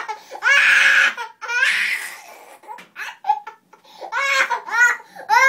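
Toddler crying hard while being given a shot. There are two long strained screams about half a second and a second and a half in, and quick pulsing sobs near the end.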